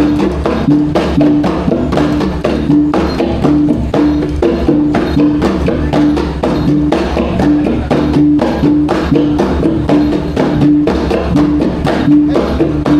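Traditional Iban gendang pampat ensemble playing: rapid, steady drum and percussion strokes over a pitched note that repeats about every two-thirds of a second.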